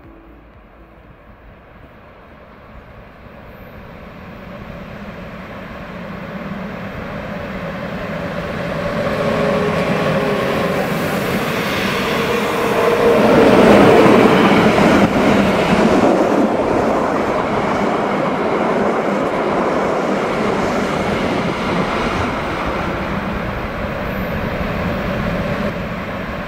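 Narrow-gauge Rhaetian Railway electric freight train approaching, growing steadily louder, then passing close with loaded log wagons rumbling over the track.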